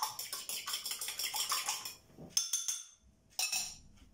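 An egg being beaten in a bowl: a utensil clinking rapidly against the bowl at about six strokes a second, stopping about two seconds in, followed by two short knocks.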